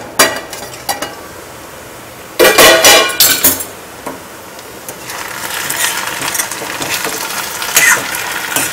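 A stainless steel plate used as a lid is taken off a kadhai: a few light clinks, then a loud metallic clatter with ringing about two and a half seconds in. After that, okra and onions sizzle in the hot oil, with a spoon scraping the pan near the end.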